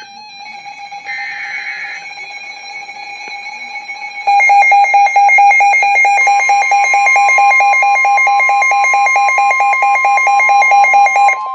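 Emergency Alert System signal for a severe thunderstorm warning: a one-second screech of digital SAME header data, then from about four seconds in a loud, rapidly pulsing alarm beep, joined about two seconds later by a steady long warning tone. The beeping stops near the end while the steady tone holds.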